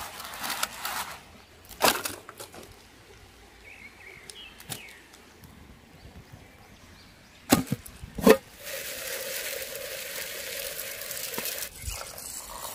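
Tissue paper crumpled and a few sharp cracks and knocks, then water pouring steadily into an aluminium mess tin of rice.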